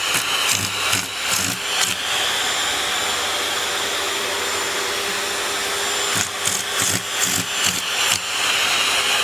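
A small electric appliance motor running steadily with an airy hiss through the middle stretch. It is framed at the start and near the end by quick, irregular strokes, a few a second.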